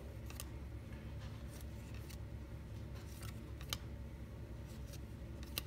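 Football trading cards being handled one at a time, slid off the front of a hand-held stack: a handful of faint, sharp clicks and soft scrapes at uneven intervals over a low steady hum.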